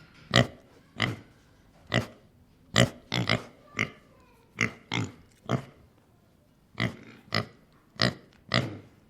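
Domestic pig grunting: a run of about fourteen short grunts at an uneven pace, roughly one or two a second, some coming in quick pairs.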